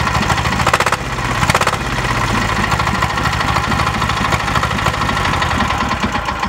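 Small diesel generator engine running steadily just after a cold start, with its rapid even firing beat.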